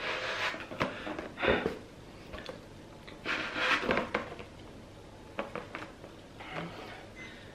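A rubber party balloon being blown up by mouth: a few puffs of breath into it, with soft handling of the balloon between them.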